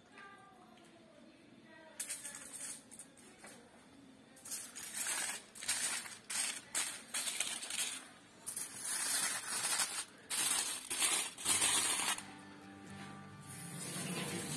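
Aluminium foil crinkling and rustling in irregular bursts as it is handled and folded. Background music comes in near the end.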